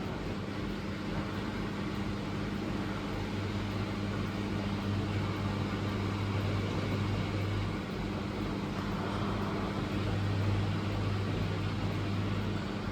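Miele W1 Professional washing machine running: a steady mechanical hum with a deeper motor tone that comes in about three seconds in, drops out near the middle and returns briefly near the end.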